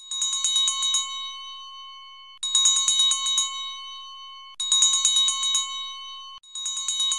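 A single bell struck in four quick bursts of about eight fast strokes each, roughly every two seconds. Each burst rings on and fades before the next.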